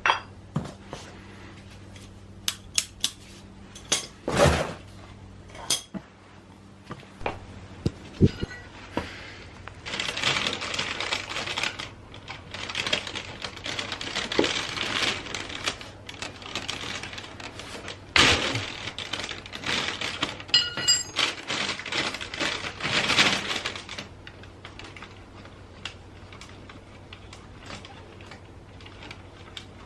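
Metal tools and parts clinking and clattering during hand work on a motorcycle oil change, with stretches of scraping and rustling in the middle.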